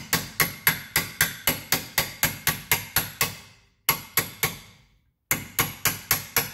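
Hammer striking a short steel punch to drive an 18 mm bolt out of a rear control arm mount on a 2013 Nissan Altima: sharp metal-on-metal blows at about four a second, each with a short ring. The blows pause briefly about four seconds in and then resume at the same pace.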